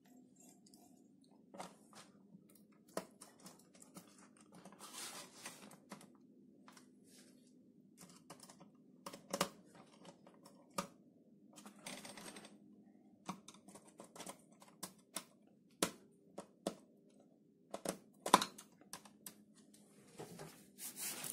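Scattered clicks and knocks as a scale cable's D-sub connector is plugged into the back of a digital readout unit and fastened, with a few stretches of rustling from handling the unit's plastic cover and the metal-sheathed cable. A low steady hum runs underneath.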